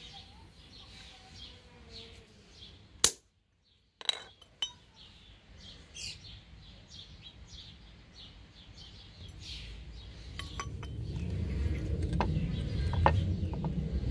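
A centre punch marking a steel flat bar: one sharp metallic strike, then two lighter taps about a second later, with birds chirping throughout. A low rumble builds over the last few seconds.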